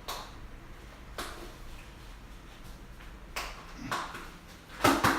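Scattered knocks and clinks of hand tools and steel parts being handled while assembling a motorcycle dolly, about half a dozen separate hits, the loudest two close together near the end.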